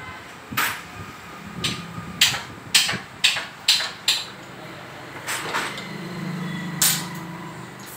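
A series of sharp metallic knocks, hammer-like, about seven in quick succession over the first four seconds and one more near the end, with a low hum for about a second before the last knock.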